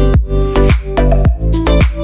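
Background electronic dance music with a steady beat and a steady bass line.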